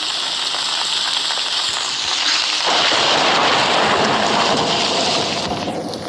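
Steady rain falling, growing louder and fuller about two and a half seconds in and easing off near the end.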